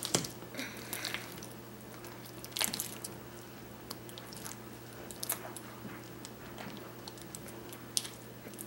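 A large mass of slime with fishbowl beads being mixed, giving irregular wet squishes and small crackling pops.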